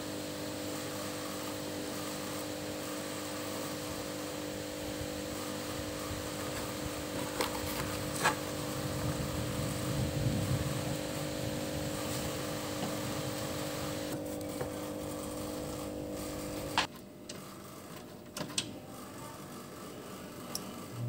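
Car AC/radiator cooling-fan electric motor running with a steady hum, then cutting off abruptly about seventeen seconds in. There are two sharp clicks midway and a few light clicks after it stops.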